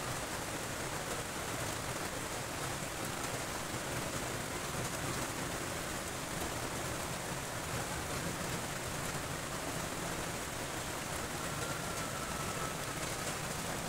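Steady rain falling, with faint ticks of individual drops.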